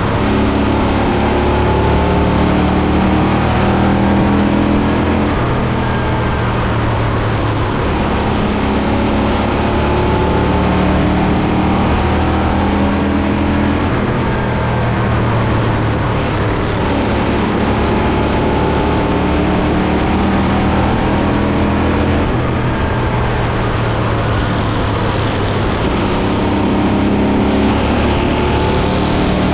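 Race car engine running at racing speed, its pitch holding and then falling and rising again every few seconds as the throttle is held and lifted.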